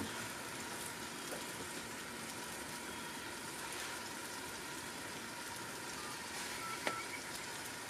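Butter and onion-roll buns sizzling steadily on a hot Blackstone flat-top griddle, a faint even crackle. A single light tap near the end.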